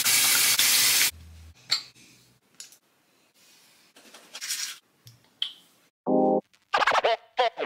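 A bathroom tap runs into the sink and stops about a second in. Quieter rubbing and scrubbing follows, with a short burst of toothbrush scrubbing. About six seconds in, an electronic music jingle with record-scratch effects starts.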